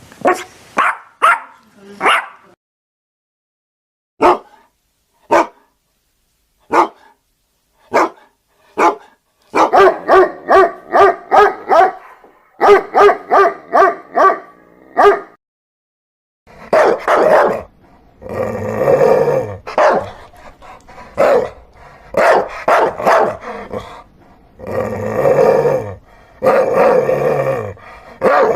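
Dogs barking in several bouts. First come a few quick barks, then single sharp barks about a second apart, then a fast run of barks. After a short pause, longer and deeper barks follow to the end.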